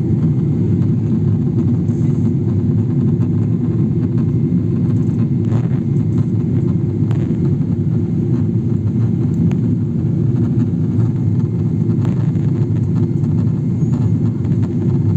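Steady low rumble of an airliner's engines and airflow heard from inside the passenger cabin.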